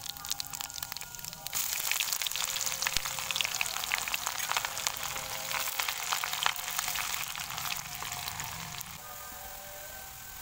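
Sliced onions frying in hot oil in a kadai, a loud dense sizzle full of crackles and pops that jumps up about a second and a half in as the onions go into the oil, and eases off near the end while they are stirred with a spatula.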